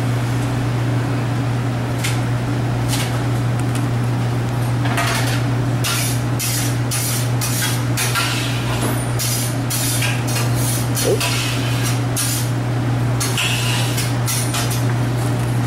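Metal ladle and serving utensils clinking and clattering against pans and foam containers while stew is served up, in quick irregular clusters through the middle and latter part, over a steady low hum of kitchen equipment.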